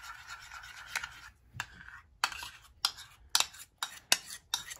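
A spoon scraping thick yogurt out of a bowl, then knocking against the bowl in a string of sharp clicks, about two or three a second, coming faster near the end.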